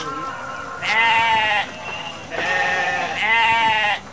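Sheep bleating: three bleats of under a second each, the first about a second in and the last two nearly back to back near the end.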